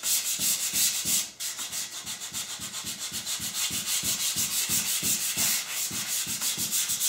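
220-grit sandpaper rubbed by hand back and forth over a primed wooden chair frame, scuff-sanding the oil-based primer so latex paint will stick. Quick, even strokes at about three a second, with a brief break about a second in.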